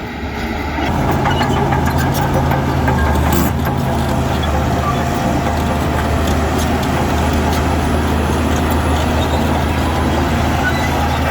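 Heavy diesel earthmoving machinery running steadily, its engine note rising in loudness about a second in, with scattered clicks and clanks over it.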